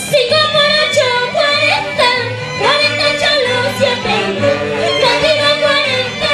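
A woman singing a high-pitched Andean folk song into a microphone, her voice sliding up into the notes, backed by a live band with saxophones over a steady, repeating bass line.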